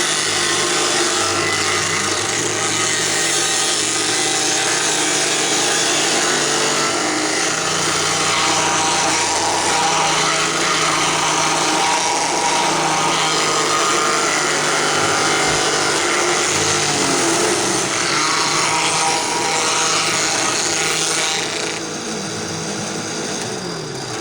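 Drill press spinning a rotary safety planer, its cutters shaving burled walnut: a steady, dense cutting noise with the motor running underneath. Near the end the cutting noise drops away and the sound gets quieter.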